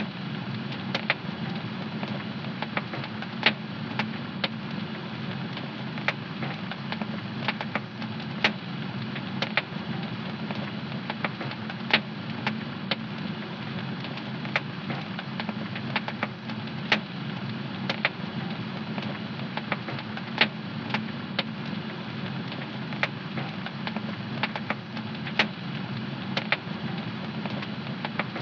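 Fire crackling in a home fireplace: a steady low rush of burning with frequent sharp pops and snaps at irregular intervals.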